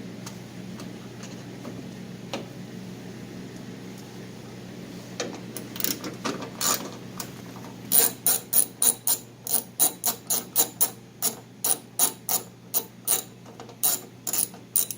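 Hand ratchet wrench clicking as it undoes a car door handle's mounting bolt. A few scattered clicks come first, then from about halfway through a steady run of sharp clicks at about three a second.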